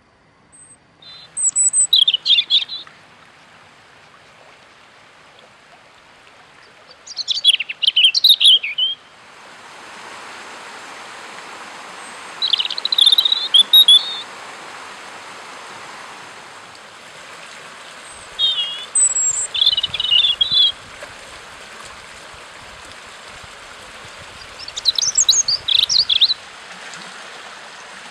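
A songbird sings short phrases, about one every five or six seconds, over the steady rush of a shallow stream running over stones. The water noise grows louder about ten seconds in.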